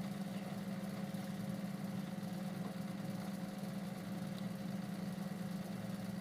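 A steady, low mechanical hum with a faint higher tone above it.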